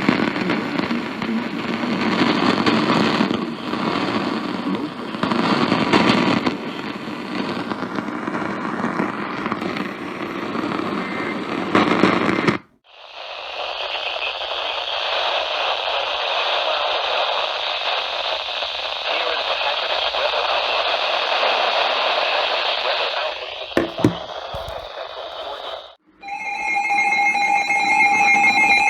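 Crackling noise, then after a sudden break a steady radio-static hiss. About 26 seconds in, steady electronic alert tones start, the attention signal of an emergency alert broadcast.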